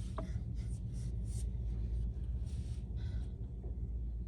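Steady low rumble of trains around a railway station, with a few short, faint hisses and a brief falling tone just after the start.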